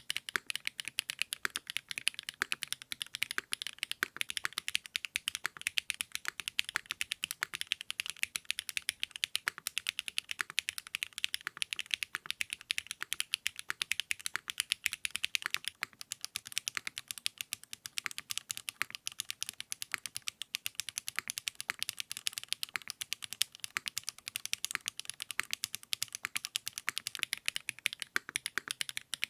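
Fast, continuous typing on a custom mechanical keyboard with 80Retros x HMX KD400 switches: a dense stream of keystroke clicks and clacks.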